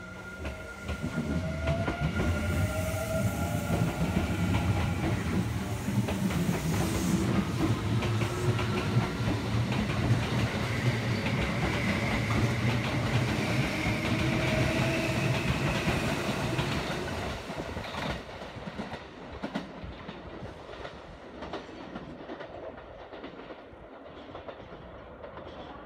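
Kintetsu Series 21 electric commuter train running out of the station: a loud rumble of wheels on rail with clickety-clack over the joints and a motor whine rising in pitch as it accelerates, plus a high wheel squeal in the middle. The noise drops away about two-thirds of the way through as the train pulls off, leaving a quieter rumble.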